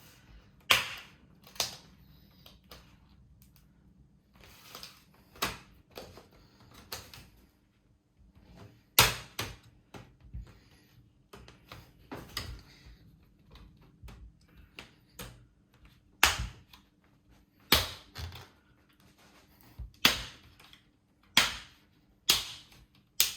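Plastic screen bezel of an Acer F5-571 laptop being pried off, its retaining clips snapping loose in sharp clicks. About ten loud snaps come at irregular intervals, with softer clicks between.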